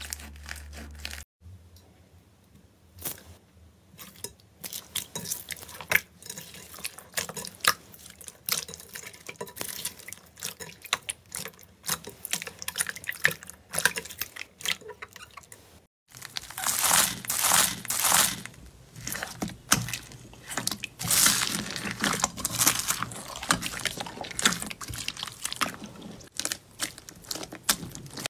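Hands squeezing and poking slime: a run of small wet, sticky clicks and squelches from a clear jelly slime with beads, then, from a little over halfway, denser and louder crackling as a finger presses into a lumpy purple slime.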